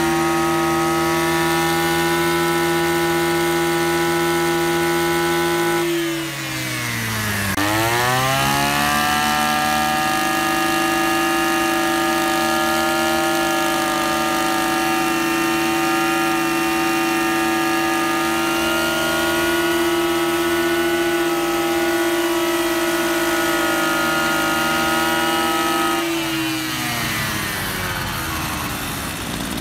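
Oshima VX330 brush cutter's two-stroke petrol engine running off load at high revs. About six seconds in the throttle is let off, the pitch drops, and it climbs straight back to full revs. Near the end the revs fall away again toward idle.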